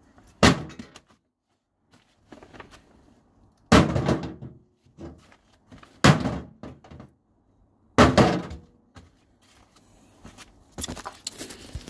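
A brick striking a microwave oven, four heavy crashes a few seconds apart, each with a short clatter after it.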